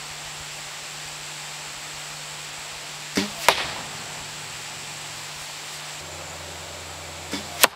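A target recurve bow shot: the string is released with a sharp snap, followed about a third of a second later by a second sharp crack. A similar pair of sharp sounds comes near the end, over a steady hiss.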